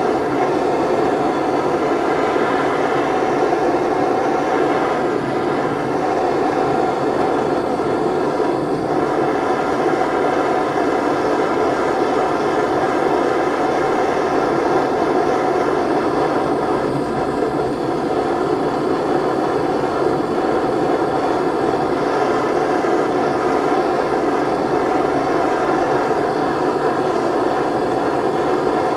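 Gas blowtorch flame burning steadily with an even rushing noise, heating a change gear so that its bore expands.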